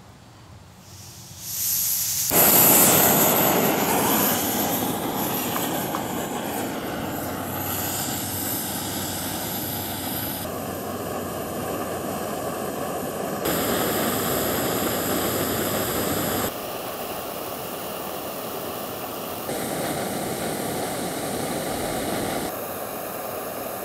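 Small canister backpacking stove's gas burner lit about a second and a half in, then running with a steady hiss under a pot of water being brought to the boil, its level shifting abruptly a few times.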